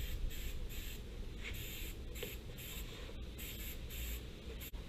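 Aerosol can of spray adhesive hissing in a quick run of short bursts, about two a second, laying a light coat over the part; the bursts stop near the end.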